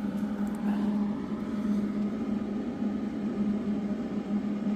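Steady machine hum with a rough, noisy drone underneath, holding an even pitch.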